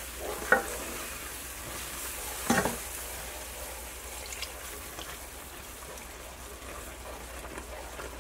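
Flour-and-butter sauce sizzling in a skillet while it is stirred with a wooden spoon and chicken stock is poured in. A sharp knock comes about half a second in and another about two and a half seconds in.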